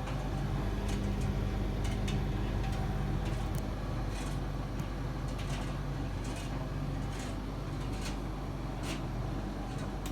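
Servis Caress M2010 tumble dryer running: a steady motor hum with light, irregular knocks from the turning drum, about one a second.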